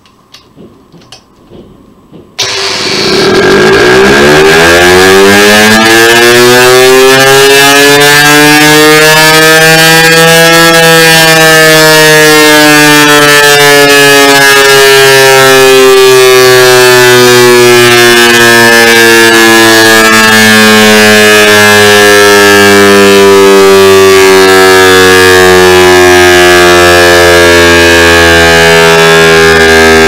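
DS977 electric motor siren starting up after a few faint clicks: a very loud wail that climbs steeply in pitch for about eight seconds, then slowly sinks while it keeps sounding.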